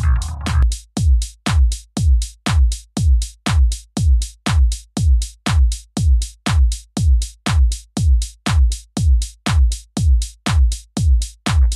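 Electronic background music with a steady drum-machine beat: a deep kick drum about twice a second with sharper hi-hat-like strikes in between.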